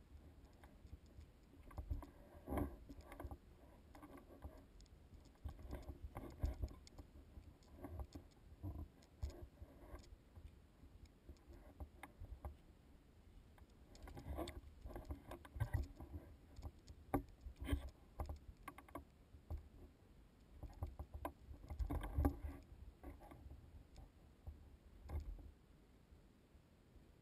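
Hiking footsteps on rock and loose gravel: irregular crunches, scuffs and small knocks in uneven bursts, loudest about three-quarters of the way in.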